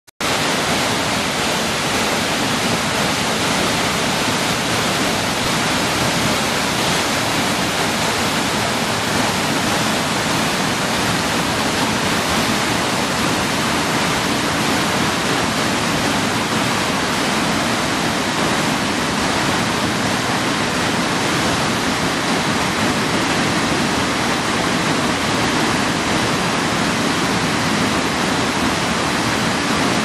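Jōren Falls, a single waterfall plunging into a rock pool: a loud, steady rush of falling water.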